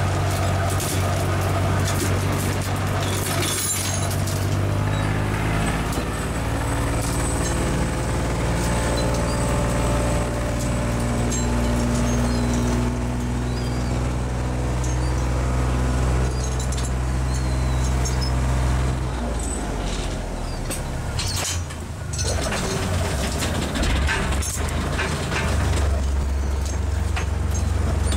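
Small bottom-trawl fishing boat's diesel engine running steadily under way. Its deep, even note breaks up about two-thirds of the way through and settles into a new steady note near the end.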